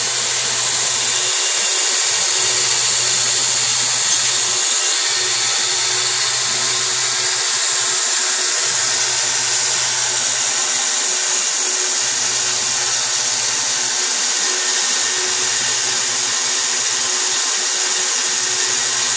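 Homemade knife-blade belt sander (belt grinder) running, its abrasive belt giving a loud, steady hiss. A low hum comes and goes about every three seconds, each time for about two seconds.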